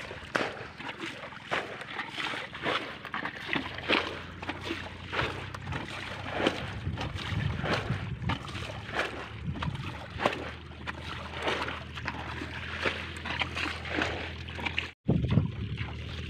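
Muddy water splashing and sloshing in irregular strokes as a shallow pool is bailed out with a bucket.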